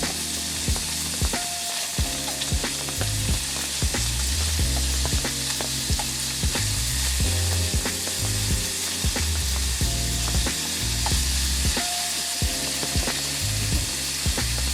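Food sizzling steadily in a hot frying pan, over background music with bass notes and a regular beat.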